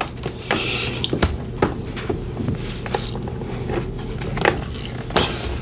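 A tarot deck being shuffled and handled, a string of quick papery flicks and taps as cards are drawn.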